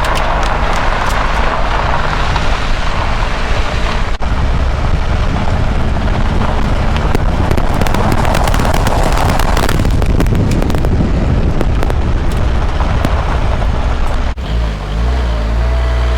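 Car driving: a steady low engine and road rumble with tyre noise and scattered crackling. The sound breaks off abruptly twice, about 4 and 14 seconds in.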